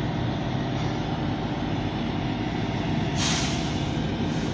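Truck engine idling with a steady low rumble, and a sharp hiss of air brakes releasing about three seconds in.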